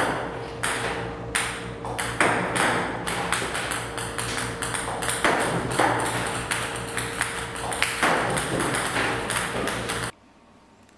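Ping-pong balls fired by a table tennis robot, clicking and bouncing rapidly on the table and net over a steady machine hum. The sound cuts off suddenly near the end.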